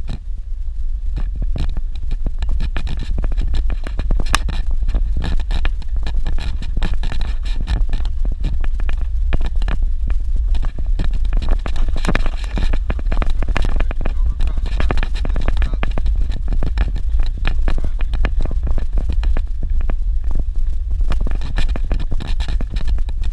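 Vehicle driving over a rough dirt road: a steady low rumble with constant rattling and scraping clicks.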